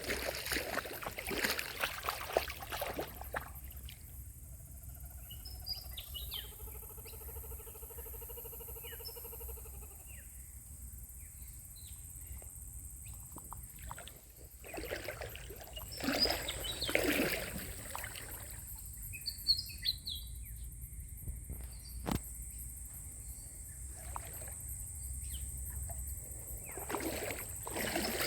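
Small birds chirping on and off over quiet creek-side ambience, with bursts of rustling noise near the start and again about halfway through. A steady droning tone with several overtones runs for a few seconds early on.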